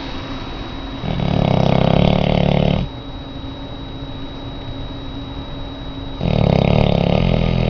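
A large Labrador retriever snoring in deep sleep: two long, raspy snores about five seconds apart, each lasting under two seconds.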